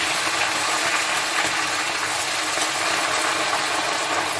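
Hot oil in a frying pan sizzling and crackling steadily as soaked omena, small Lake Victoria sardines, are spooned in to deep fry.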